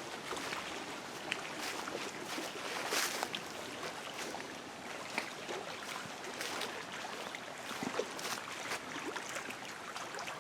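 Lake water lapping against the shore beside a path, a soft, uneven wash, with a few light knocks here and there.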